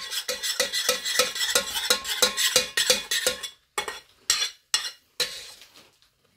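Metal spoon stirring boiling-down cola syrup in a stainless steel saucepan, clinking and scraping against the pan about five times a second. Near the middle the stirring stops, and three separate knocks of the spoon on the pan follow.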